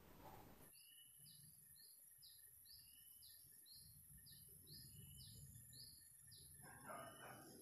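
Faint outdoor ambience: a bird repeats a short, high, falling note about three times a second over a steady high-pitched whine. A brief louder call breaks in near the end.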